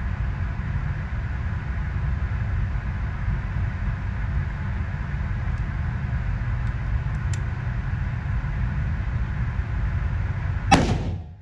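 Steady low rumble, then a single sharp crack near the end from a Savage 6.5 Creedmoor bolt-action rifle being fired.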